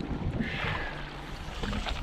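Wind buffeting the microphone and water sloshing against a fishing boat's hull, a steady low rumble, with a brief higher-pitched sound about half a second in and a few light clicks near the end.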